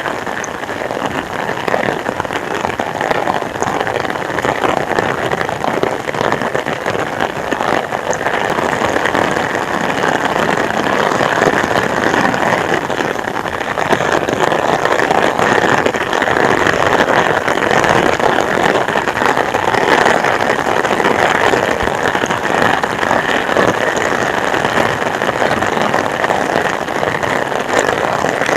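Heavy rain pouring in a steady, dense hiss that grows slightly louder about ten seconds in.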